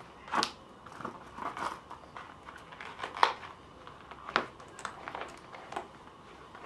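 Leather belt holster being handled and shifted on a leather belt: a string of irregular short handling noises, with a few sharper clicks standing out.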